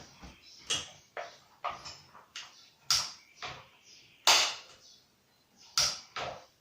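Chain brake of a FarmerTec G444 chainsaw (Stihl MS440 clone) being snapped on and off by hand: a series of about a dozen sharp, irregularly spaced clicks and snaps, the loudest about four seconds in.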